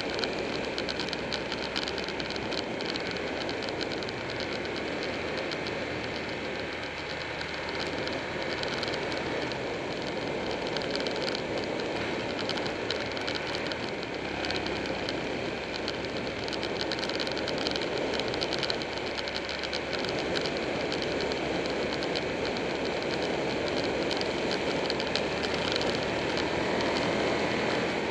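Buell 1125R's liquid-cooled V-twin engine running at road speed, mixed with steady wind rush on a bike-mounted camera, growing a little louder near the end.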